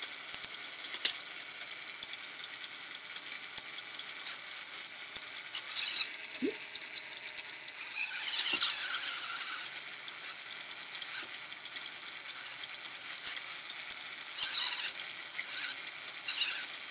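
Chain-driven spinner weapon of a VEX Robotics Bite Force BattleBots kit robot running, giving a steady, fast rattle.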